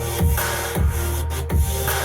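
Electronic dance music with a heavy bass drum beat about twice a second, played back through an Obage DT-31 dual tower speaker.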